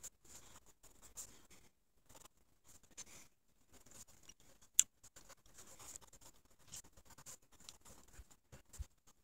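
Mechanical pencil writing on a paper legal pad: quick, faint scratching strokes, with one sharp click about halfway through.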